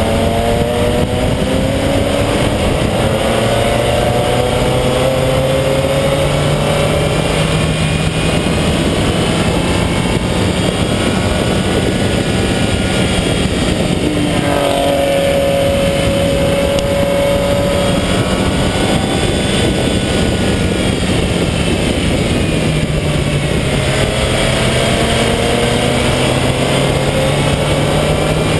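Race car engine at speed on a track lap, its pitch climbing steadily under acceleration and falling back sharply twice, about halfway through and again near the end, before climbing again. Heavy wind and road noise lie under the engine.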